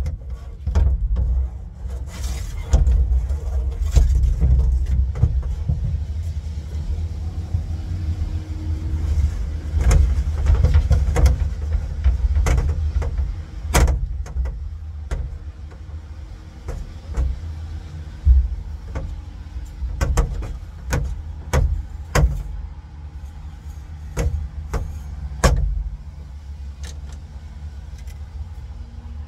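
A steady low rumble with scattered sharp knocks and clanks of metal parts and tools being handled.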